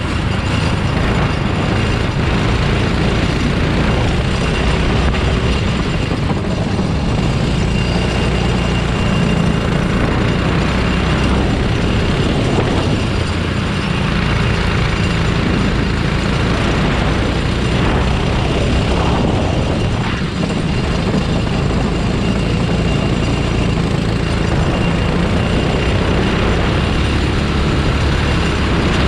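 Racing kart engine running hard, heard onboard during a race, its note rising and falling as the driver goes on and off the throttle.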